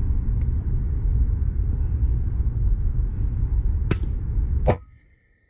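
A single shot from an FX PCP air rifle, a sharp crack about four seconds in, over a steady low rumble. A second sharp click follows just under a second later, and then the rumble cuts off abruptly.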